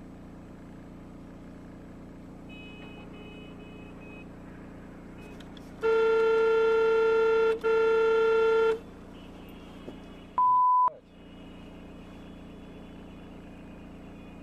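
Car horn sounding in two long blasts, the first about a second and a half and the second about a second, over a steady low car-cabin hum. A little later comes a short one-pitch bleep, with the other sound cut out beneath it.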